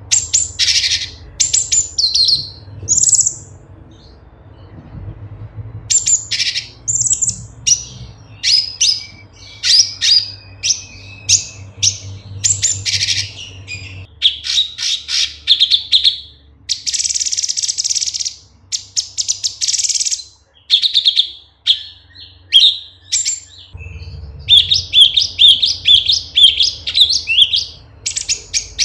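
Cucak cungkok (a leafbird) singing a varied run of sharp chirps and whistled phrases, some falling. About two-thirds through come two longer scratchy notes, and near the end a quick series of repeated notes.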